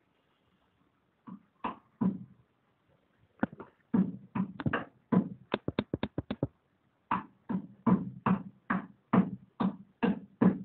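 A hand slapping and patting a round pan over and over: a few slaps, then a quick run of them that is fastest in the middle, a short pause, and a steadier string to the end.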